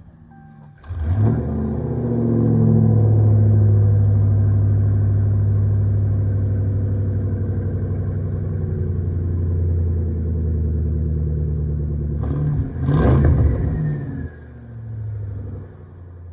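A car engine starting up about a second in and running steadily, with a brief rev near the end.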